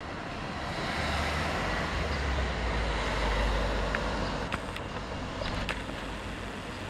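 Outdoor traffic noise: a steady background hiss with a vehicle's low rumble swelling through the first few seconds and easing off, and a few short clicks between about four and six seconds in.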